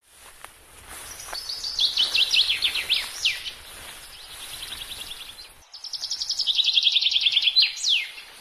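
Songbird singing two long phrases of fast, repeated chirping notes. The second phrase starts a little past halfway and is the louder one, ending in a quick downward sweep.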